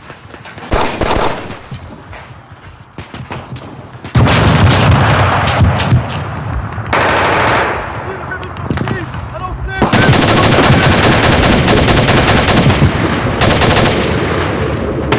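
Rapid automatic gunfire: scattered shots at first, loud bursts from about four seconds in, then a long continuous stream of fire from about ten seconds in.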